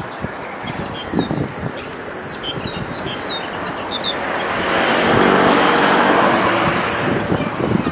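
A few short, high bird chirps, then a motor vehicle passing close by, its engine and tyre noise swelling to the loudest point about five to seven seconds in and then fading.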